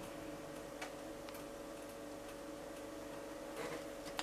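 Quiet room tone: a steady low hum with a few faint ticks.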